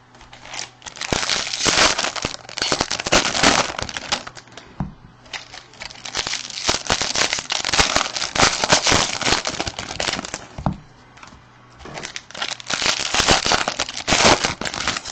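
Baseball card pack wrappers crinkling and crackling as packs are handled and torn open, in bouts with two short lulls, about four and eleven seconds in.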